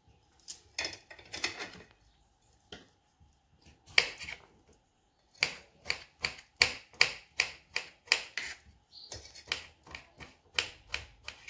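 Kitchen knife cutting peeled bottle gourd into cubes on a wooden cutting board: crisp cuts and taps, a scattered few at first, then a steady run of about two to three a second from about halfway through.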